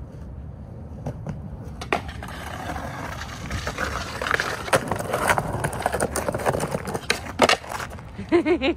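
Skateboard wheels rolling on concrete, the board clacking up onto a concrete ledge and grinding along it in a backside boardslide, then landing with sharp clacks about seven seconds in and rolling away. A short voice near the end.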